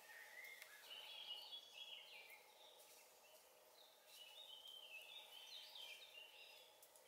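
Faint songbird song: two warbling phrases, one at the start and another about four seconds in.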